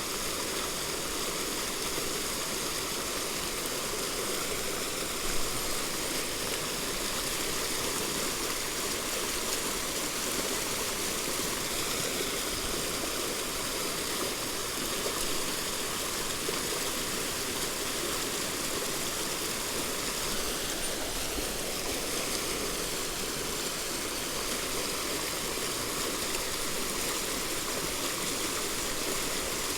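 Steady rush of a mountain stream running low in a dry spell, with one brief click about five seconds in.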